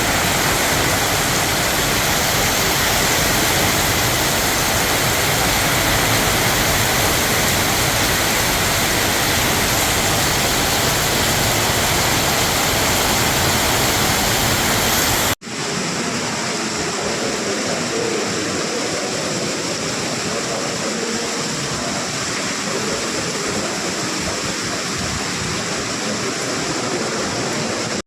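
Heavy rain pouring down as a dense, steady hiss. About halfway through it cuts off abruptly and returns as a thinner, slightly quieter hiss.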